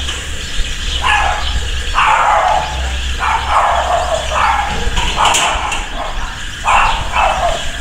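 An animal calling repeatedly, about seven separate cries of under a second each, over a steady low hum.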